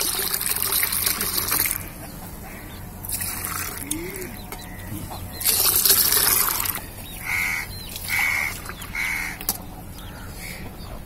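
Milky white liquid poured in a thin stream from a steel pot into a steel bowl, splashing loudly in three spells of pouring. Near the end a bird calls three times, about a second apart.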